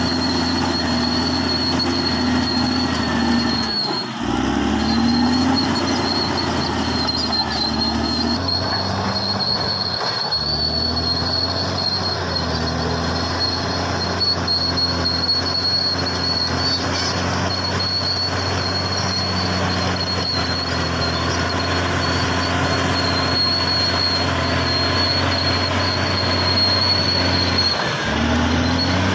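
Caterpillar D6R XL crawler bulldozer's diesel engine running under load with a steady low rumble and the clank and squeal of its steel tracks. The engine note dips and shifts about 4 seconds in, again about 10 seconds in, and near the end. A steady high whine sits above it.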